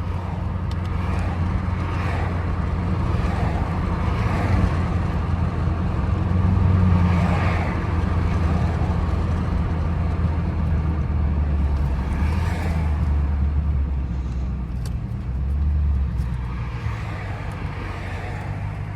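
Chrysler 300 SRT's 392 Hemi V8 running under way, heard from inside the car as a deep, steady drone that swells briefly about a third of the way in and settles to a lower note later. Tyre and road noise from the wet road runs under it.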